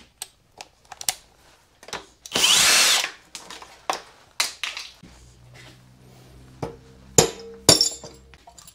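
Cordless impact driver running once, for under a second about two seconds in, backing a cylinder head bolt out of a Briggs & Stratton Intek single-cylinder engine. Scattered sharp metal clicks and clinks follow as the loosened head is worked free.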